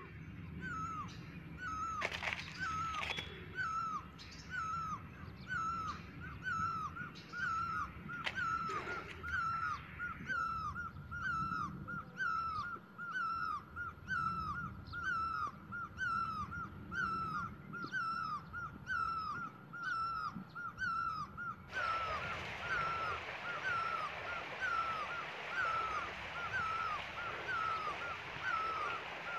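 A short, hooked, whistle-like animal call repeated at a steady rate, about three calls every two seconds, over a constant forest background hiss that suddenly grows louder about three-quarters of the way through.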